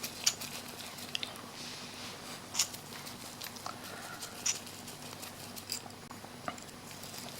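Scattered small clicks and light taps as small parts are taken off a Parrot Bebop drone's camera module by hand, over a faint steady hum.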